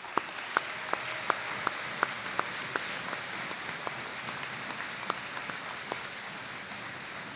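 Large audience applauding. One nearby clapper's sharp claps stand out at about three a second for the first few seconds, and the applause slowly fades.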